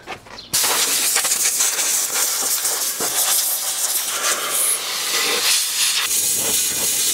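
Compressed-air blow gun hissing hard as it blows out a steam engine crankcase casting, starting abruptly about half a second in and swelling and dipping as the nozzle moves over the casting.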